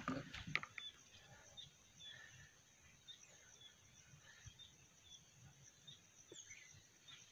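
Near silence: faint outdoor ambience with distant birds chirping now and then over a steady, high, faint drone.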